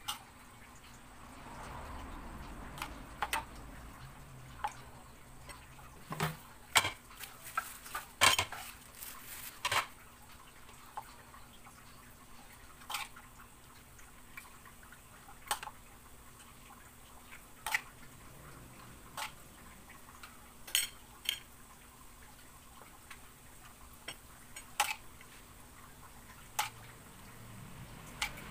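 Irregular sharp clinks and taps of a ceramic plate and bowl every second or two, thickest about six to ten seconds in, as a whole tilapia is stuffed by hand with chopped tomato and onion.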